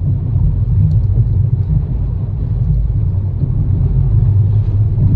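Outboard motor of a small open boat running steadily under way, heard as an even low rumble.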